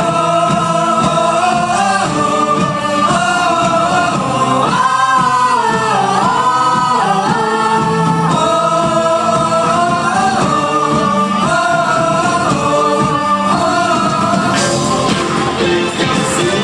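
A band playing a song live, with a lead vocal singing long, held notes over the instruments.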